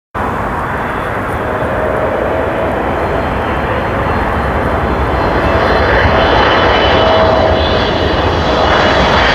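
Boeing 777-300 jet airliner on landing approach: a steady roar from its engines with a thin whine, growing gradually louder as it comes in.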